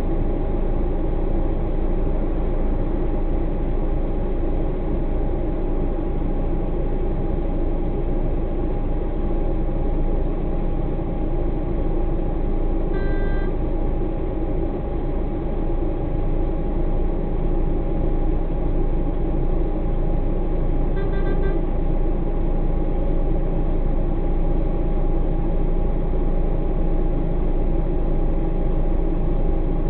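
Heavy truck engine idling while stopped in traffic: a steady hum with a constant whine. Two short beeps sound about 13 seconds in and again about 8 seconds later.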